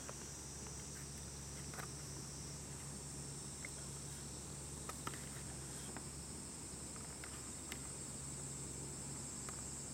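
Steady high-pitched chorus of insects in the grass over a low steady hum, with a few faint scattered clicks.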